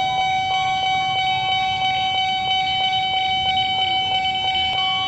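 Steady electronic warning tone made of several held pitches, pulsing about twice a second.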